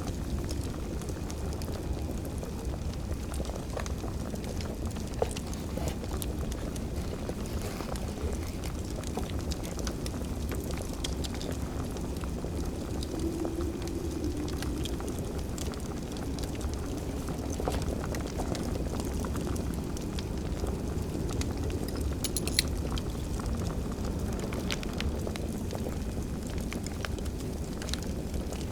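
Fire crackling over a steady low rumble, with scattered sharp pops and snaps.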